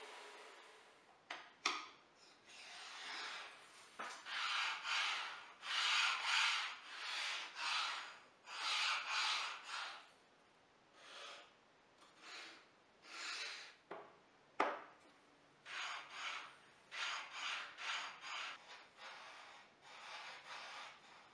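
Wooden runner strip rubbing back and forth along the table saw's steel miter slot in a series of short scraping strokes, as it is fitted to the slot. A couple of sharp knocks of wood on the metal table come in between.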